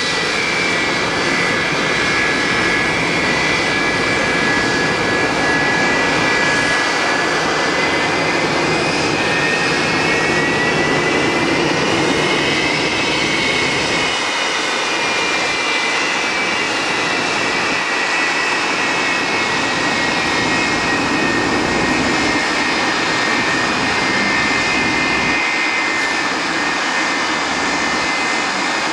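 Jet engines of a Boeing 757 airliner running at taxi power: a steady rush with a high whine that rises a little partway through and then settles back.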